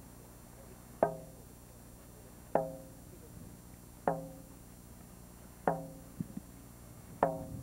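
Slow, steady beat on a First Nations hand drum: five single strikes about a second and a half apart, each ringing briefly and dying away.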